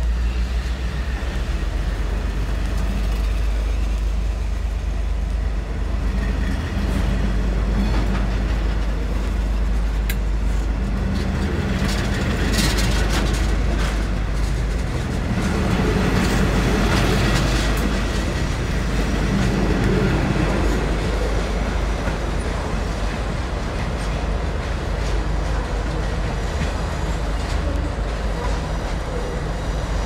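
Passenger carriages of a departing locomotive-hauled train rolling past close by, wheels rumbling and clicking steadily over the rails and points, with a short burst of clicks and a brief high hiss about twelve seconds in.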